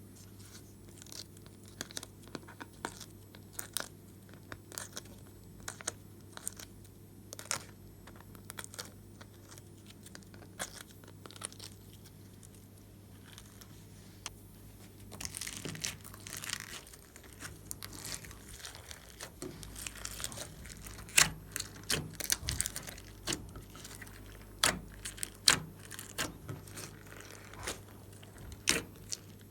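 Glossy slime being squished and stretched by hand, giving irregular sticky clicks and small crackling pops, which come thicker and louder in the second half.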